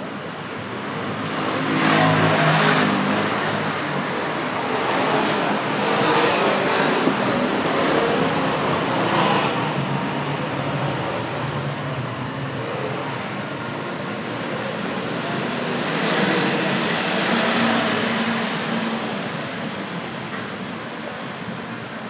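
Road traffic close by: several vehicles pass one after another. The loudest pass is about two seconds in and another comes about sixteen seconds in.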